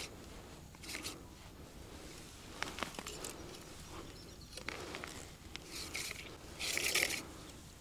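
Faint handling noise from lowering an underwater camera on its cable through an ice hole: light rustling of gloves and winter clothing with a few small clicks about three seconds in, and a short louder rustle near the end.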